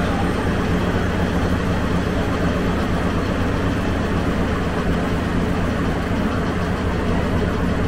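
Steady low rumble of a vehicle engine running, an even drone with a low hum underneath and no change in level.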